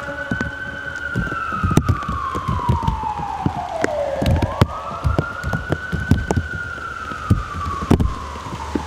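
An emergency vehicle siren wailing in two long sweeps. Each climbs quickly, then slides slowly down over about four seconds. Rain falls with many sharp drops tapping close by.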